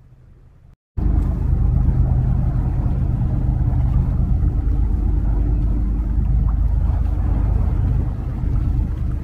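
Loud, steady low rumble with a deep engine drone, starting abruptly about a second in: a high-speed catamaran ferry running past offshore.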